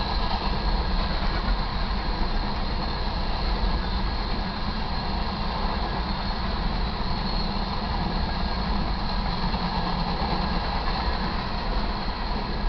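A grain train's covered hopper cars rolling past: a steady rumble and rush of steel wheels on rail.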